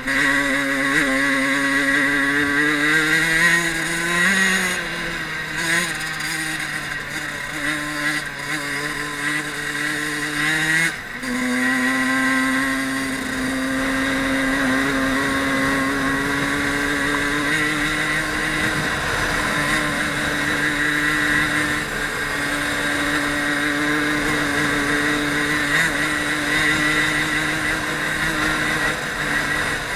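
Fantic 50 Caballero Regolarità's small two-stroke single-cylinder engine running under load on a trail ride, heard from the bike itself. The revs swell and ease near the start, dip briefly about eleven seconds in and jump higher, then hold steady.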